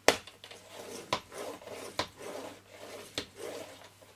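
Paper trimmer's scoring-blade carriage sliding along its rail, pressing a score line into card stock: a scraping rub broken by four sharp clicks about a second apart.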